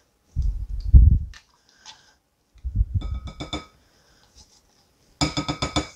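A plastic scraper scooping thick sour cream out of a plastic tub into a glass bowl of beaten eggs, with dull low knocks and scrapes twice. Near the end comes a quick run of about six ringing taps as the scraper strikes the glass bowl.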